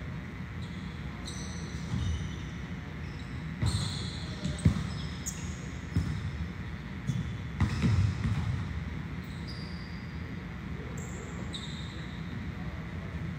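Volleyballs being struck and bouncing on a gym floor: a handful of sharp smacks through the middle, the loudest about four and a half seconds in, with short high squeaks from sneakers between them. A steady low hum of the hall runs underneath.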